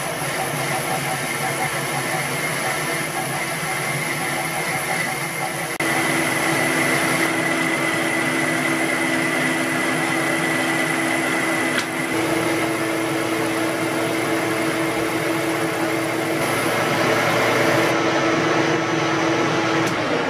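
Metal lathe running while a boring bar cuts the bore of a nut blank: a steady mechanical whine with constant tones. The tones shift abruptly about six seconds in and again about twelve seconds in.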